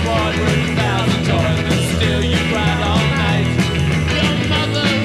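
Rock music with a steady beat and bass line.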